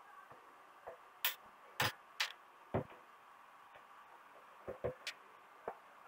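Faint, irregular small clicks and taps, about nine of them over a few seconds, from pliers working at the LED backlight strip and plastic reflector sheet of an opened LCD TV.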